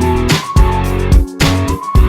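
Background music: a guitar-led track with strong bass and a steady beat.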